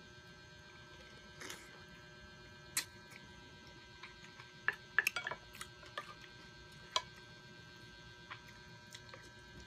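Close-up eating sounds: scattered short clicks and smacks of chewing and of spoons on a bowl and plate, a cluster of them about halfway through, over a steady electrical hum.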